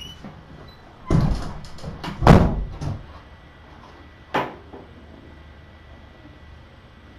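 A door being shut: two heavy thuds about a second apart, the second the loudest, then a shorter, lighter knock a couple of seconds later.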